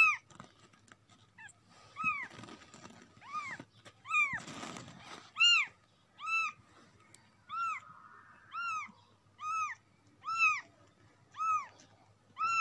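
Newborn kitten mewing over and over, about one high-pitched cry a second, each cry rising and then falling in pitch: the kitten wants to be taken back to its spot.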